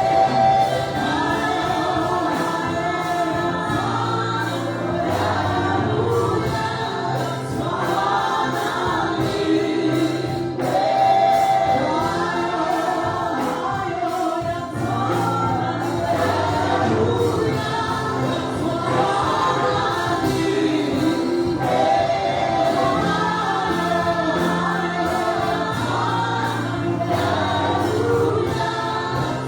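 A church choir singing a gospel worship song over sustained low instrumental notes.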